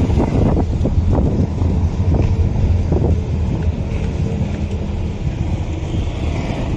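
Engine and road noise of a moving vehicle, heard from inside it as a steady low rumble, with wind buffeting the microphone and a few knocks and rattles in the first few seconds.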